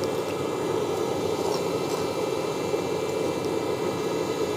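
Steady rushing noise of a pot of water heating over a wood-fired chulha.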